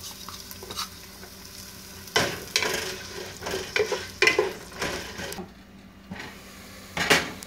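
Sliced onions sizzling in hot oil in a nonstick pot while a wooden spatula stirs them, knocking and scraping against the pot several times in the middle. A single sharp knock near the end.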